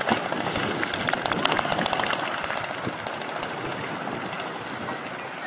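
Water splashing and rushing from a racing sailboat's bow wave and wake as it sails past close by, with wind buffeting the microphone; the crackle is busiest in the first three seconds and eases off towards the end.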